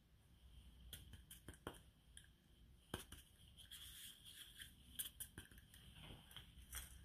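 Faint scattered clicks and light taps of a plastic measuring scoop against a glass mixing bowl of flour as cornstarch is tipped in, the sharpest about three and five seconds in.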